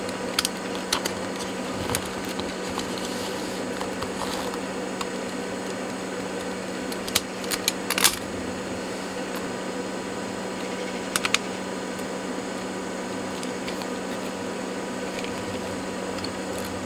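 Small clicks and snaps as the Walkman's plastic frame and metal casing are prised apart by hand, a few scattered early on, a quick cluster about eight seconds in and a pair a few seconds later. A steady low hum runs underneath.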